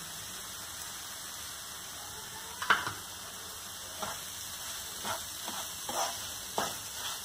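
Semolina halwa in ghee sizzling softly and steadily in a non-stick pan, with a sharp knock about three seconds in. From about four seconds in, a wooden spatula scrapes the pan in several short strokes, stirring the just-added sugar into the semolina.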